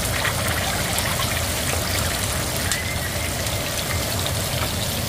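Whole red tilapia (mojarra roja) and serrano chiles frying in hot oil in a skillet: a steady sizzle with fine crackling.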